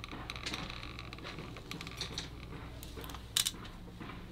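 Hand caulking gun clicking and creaking as it squeezes a bead of construction adhesive out of its cartridge onto a wooden batten, with a sharper click a little past three seconds in. A faint steady hum sits underneath.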